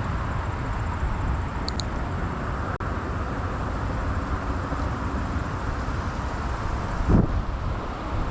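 Steady outdoor rumble and hiss, with a brief high chirp about two seconds in and a short low thump near the end.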